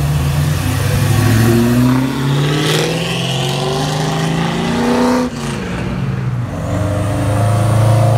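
Pontiac GTO's V8 accelerating hard, its engine note climbing and breaking off at upshifts about two and five seconds in. Near the end a second car's engine runs at a steadier low note.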